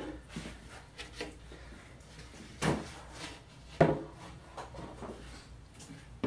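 Bent plywood panel being lifted off a wooden rib press form: a few wooden knocks and scrapes, the loudest a sharp knock a little before four seconds in.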